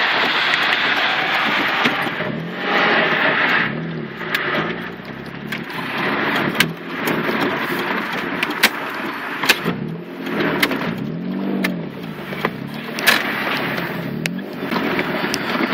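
The twin-turbo 3.0 L V6 of a 1993 Mitsubishi 3000GT VR-4, heard from inside the cabin while driving. Its revs rise and fall several times over road noise, with scattered sharp clicks.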